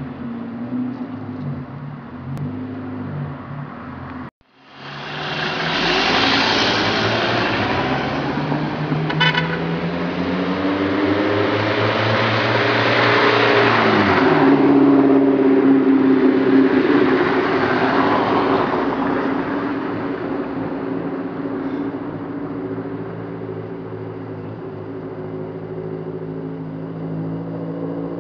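A motor vehicle passes close by: engine hum and tyre noise swell and fade, and the engine pitch drops as it goes past. The sound cuts out briefly about four seconds in.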